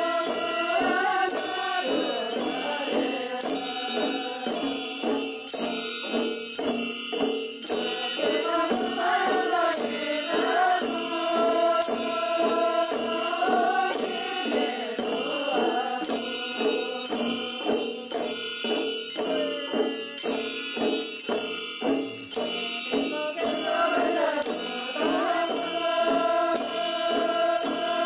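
Chöd ritual chant sung in unison by a group of nuns, a slow melodic line that rises and falls, over large Chöd hand drums (damaru) struck in a steady beat and handbells ringing.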